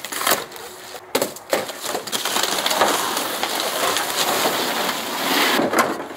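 Cardboard and plastic wrap being torn open and pulled off a shipped car bumper: a few sharp rips at the start, then a long stretch of steady crinkling and rustling.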